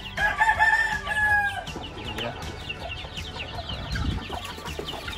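A rooster crows once, a drawn-out call starting about a third of a second in and lasting about a second and a half, over many chickens chirping and clucking throughout.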